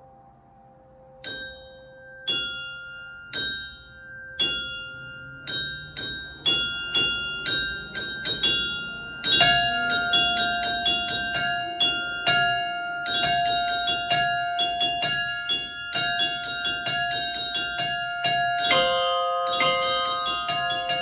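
Russian Orthodox church bells. A small bell strikes about once a second and quickens to about two strokes a second. From about nine seconds in, larger bells join in a full, overlapping peal, and a lower bell is added near the end.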